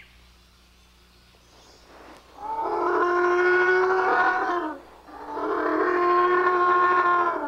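Dubbed-in calls of a stop-motion duck-billed dinosaur (hadrosaur): two long calls of steady pitch, the first starting about two and a half seconds in and the second following right after it, each dropping slightly as it ends.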